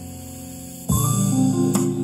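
Music with plucked guitar playing from a Monster Adventurer Force portable Bluetooth speaker. Soft held notes give way, about a second in, to a sudden louder passage of plucked guitar.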